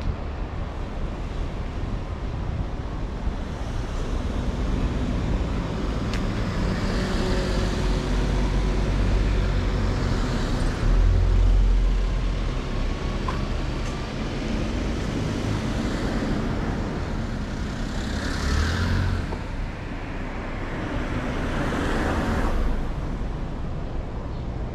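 Road traffic: several cars passing one after another, each swelling and fading, over a steady background rumble.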